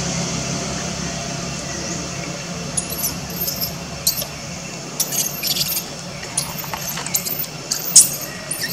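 Infant long-tailed macaque giving distress screams while its mother handles it roughly: a dozen or so short, very high-pitched squeals starting about three seconds in, the loudest near the end.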